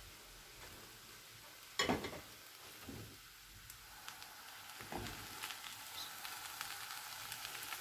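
Minced meat and potato filling sizzling in a frying pan. A sharp knock comes just under two seconds in. From about five seconds a wooden spatula scrapes and stirs through the mince.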